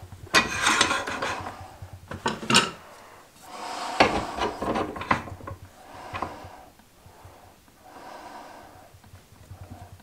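Scraping and rubbing on a pen blank in irregular strokes. The louder bursts come near the start and again around the middle, over a faint low hum.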